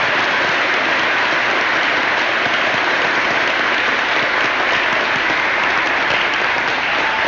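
An audience applauding in a steady, sustained round of clapping.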